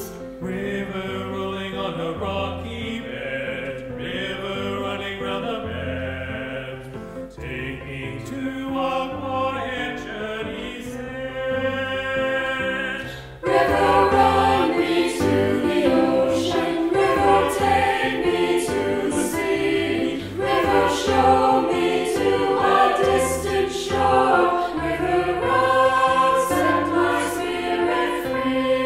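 Secondary-school choir singing with accompaniment, moderately soft at first; about halfway through it suddenly grows louder and fuller.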